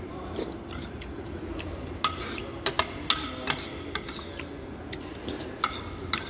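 Metal spoon clinking and scraping against a bowl while eating soup: a scattering of sharp clinks, most between about two and four seconds in and again near the end.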